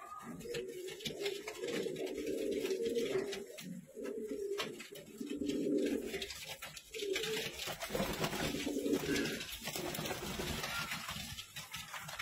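Fantail pigeons cooing: low, throaty coos in repeated, overlapping phrases, with a scratchy hiss and scattered clicks behind them.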